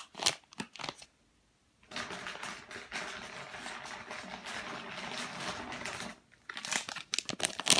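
Plastic packaging of a squishy toy crinkling and rustling: a few sharp crackles, then about four seconds of continuous rustling, then more crackles near the end.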